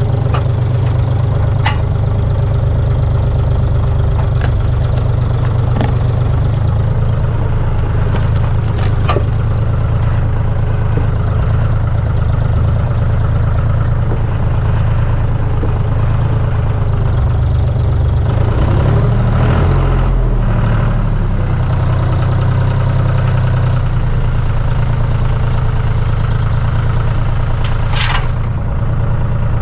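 Tractor engine running steadily while working to pull a log, with a few sharp clicks and knocks. About two-thirds of the way through, the engine note shifts and wavers for a few seconds.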